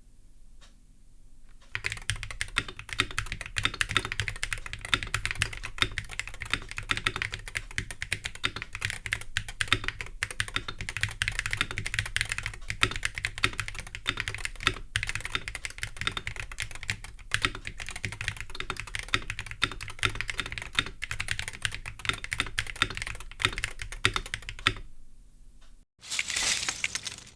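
Continuous typing on a Gravastar Mercury V75 Pro keyboard, with its Gateron Magnetic Jade Hall-effect switches in a foam-filled metal case: a dense, irregular run of key clicks and thocks that starts about two seconds in and goes on for over twenty seconds. A short loud burst of noise follows near the end.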